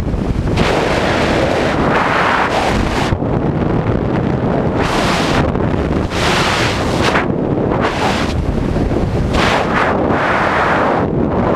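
Wind buffeting a camera's microphone during a parachute descent under an open canopy: a constant low rumble with surges of rushing hiss every second or two.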